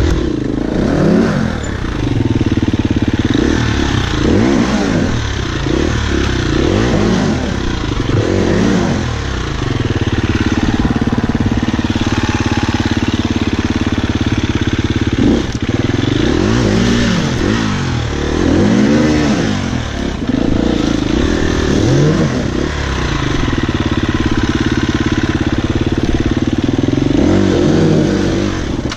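Husqvarna FE 250 single-cylinder four-stroke enduro engine idling, with repeated throttle blips whose pitch rises and falls about a dozen times.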